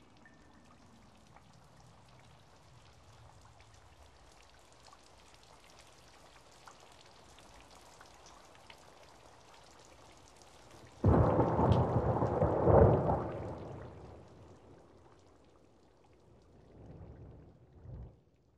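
Steady light rain with scattered drop ticks, then about eleven seconds in a sudden loud thunderclap that rumbles for a few seconds and fades. A smaller rumble of thunder follows near the end.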